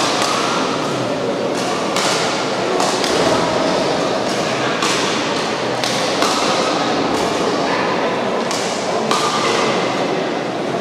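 Badminton rackets striking shuttlecocks in a hall, sharp hits every second or so, over a steady hall noise.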